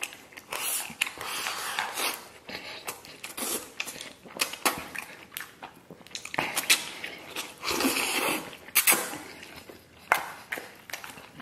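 A man eating a bowl of rice with braised pork belly and sauerkraut: noisy slurps and sucking as he shovels mouthfuls in, with wet chewing. Chopsticks click sharply against the stainless steel bowl several times.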